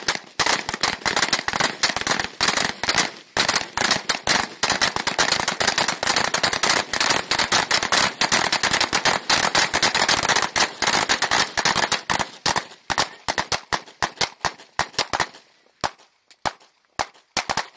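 Rifle fire on a range: a fast, dense string of shots, overlapping with their echoes, that about twelve seconds in thins out to single shots roughly half a second apart.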